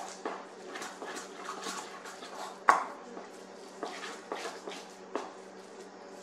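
A spoon stirring and scraping a stiff beer-and-flour dough in a stainless-steel mixing bowl: irregular scrapes and knocks, with one sharp clink against the bowl a little under three seconds in.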